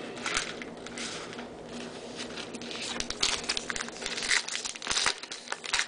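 A baseball-card pack's wrapper crinkling and tearing as it is ripped open by hand. Irregular crackles that grow denser and louder about halfway through.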